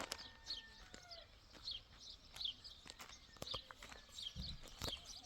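A small bird calling over and over, short high falling chirps about two a second, with scattered sharp clicks and a brief low thump near the end.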